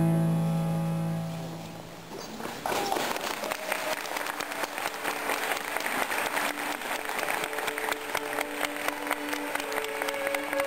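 Music ends on a held chord that dies away over about two seconds, then an audience breaks into applause about two and a half seconds in and keeps clapping, with a few faint held tones beneath it.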